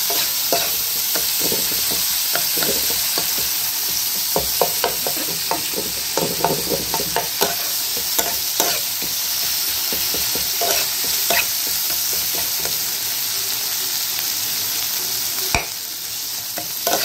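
Onions and tomato frying in oil in a kadai, sizzling steadily while a spatula stirs and presses the masala, with frequent scrapes and taps of the spatula against the pan. A sharper knock comes near the end. This is the masala being fried down after the tomato has gone in.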